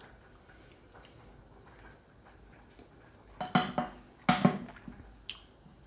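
A metal fork clinks against a dish twice, a sharp clink with a short ring each time, about three and a half and four and a half seconds in. A lighter click follows near the end.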